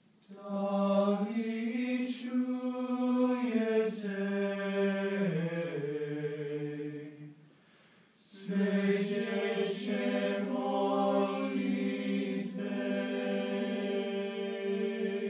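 Male a cappella ensemble of eight teenage voices singing long sustained chords. The first phrase has its lowest voices stepping down near its end. A short breath comes about seven and a half seconds in, then a second long held phrase follows.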